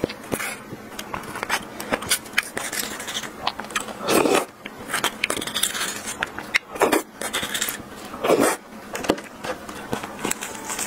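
Metal spoon scraping and clicking against a spiny sea urchin shell, scooping out the roe, as many small sharp clicks. A few louder eating sounds come in between.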